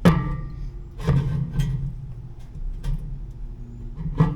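A cut metal panel piece knocked and set down with a sharp clank that rings briefly, followed by a few lighter knocks and clinks as it is handled.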